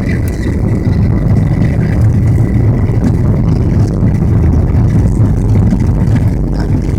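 Steady low rumble of a Boeing 737-900ER's CFM56-7B jet engines and rushing air, heard from inside the passenger cabin. A faint high whine sits over it for the first couple of seconds.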